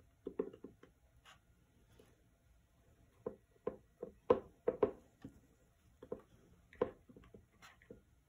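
Scattered light taps and clicks from a hot glue gun being handled and set down, and from fingers pressing craft puffballs onto a painted box frame on a cutting mat. The taps come in irregular clusters, the loudest a little past four seconds in.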